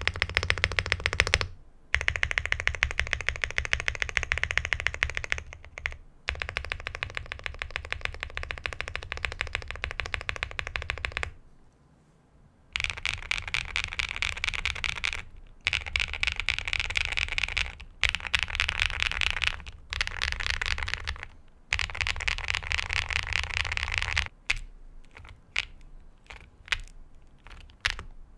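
Fast typing on an XVX K75 PRO aluminium mechanical keyboard with XVX Medium purple switches and double-shot PBT keycaps. Dense runs of keystrokes are broken by short pauses, with a longer pause about halfway through, and slower, scattered keystrokes near the end.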